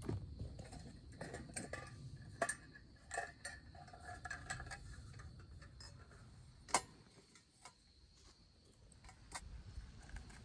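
Scattered light metallic clinks and ticks from the metal bed-warmer pan being handled over the fire. The strikes come irregularly, about a dozen of them, some ringing briefly; the sharpest comes about two-thirds of the way in.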